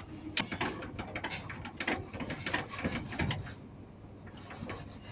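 Irregular metallic clicking and clatter of tools and hardware on a truck leaf spring being fitted to its hangers, dense for about three seconds, then a few scattered clicks.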